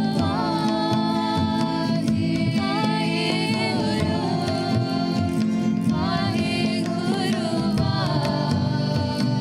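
Sikh devotional simran music: a voice sings a gliding melody over a steady low drone, with a regular drum beat.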